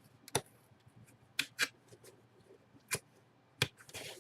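A handful of sharp clicks, about five spread over four seconds, with a short rustle near the end: hands working the jersey's plastic packaging.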